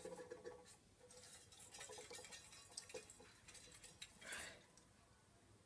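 Faint small clicks and taps of metal vacuum motor parts being handled and knocked while debris is cleared out, with a short scrape about four seconds in.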